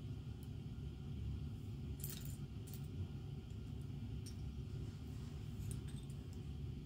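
Loose plastic LEGO bricks clicking and rattling against each other as a hand rummages through a pile of pieces, in a few scattered light clicks with a small cluster about two seconds in, over a steady low rumble.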